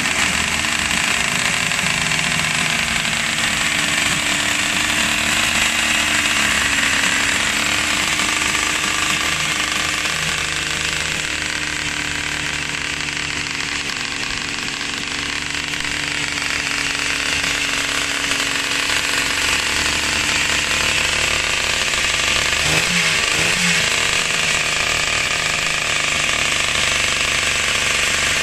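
Suzuki RG 500's two-stroke square-four racing engine running after a roller start, a steady, rapid pulsing two-stroke note with a brief wavering in pitch a little over twenty seconds in.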